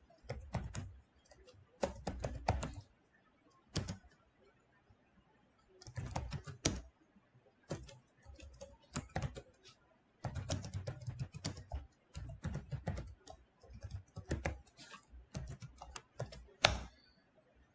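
Typing on a computer keyboard: runs of quick keystrokes with short pauses between them.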